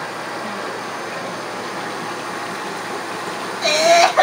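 Jetted whirlpool bathtub running: its pump and jets make a steady churning of bubbling water. A loud voice cuts in near the end.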